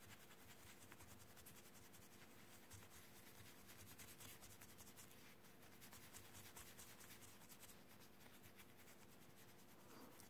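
Faint scratching of an abrasive file rubbed over a resin cabochon, sanding the polish off the raised parts of the design so that it stands out.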